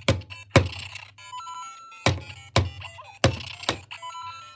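LEGO Mario interactive figure in the builder suit being knocked down onto LEGO bricks: sharp plastic clacks in quick pairs, three pairs in all. Between them the figure's built-in speaker plays short electronic game chimes and beeps.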